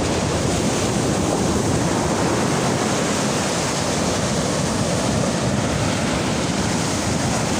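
Ocean surf breaking and washing on a beach, a steady, even rush with no break, mixed with wind on the microphone.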